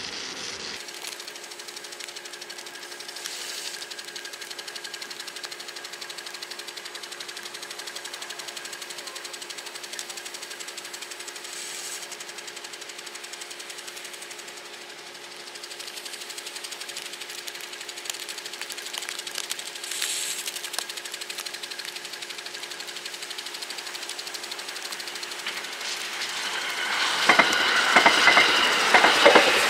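A steady hum, then a 681 series limited express electric train passing at speed through deep snow from about 27 seconds in, with a loud, rapid clatter of wheels over the rails.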